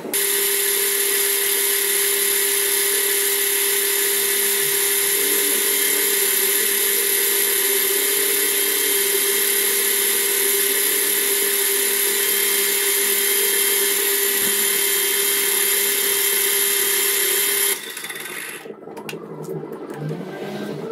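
Metal lathe running steadily, spindle spinning, a constant machine whine with a high hiss. It stops abruptly about eighteen seconds in, leaving quieter, uneven noise with a few clicks.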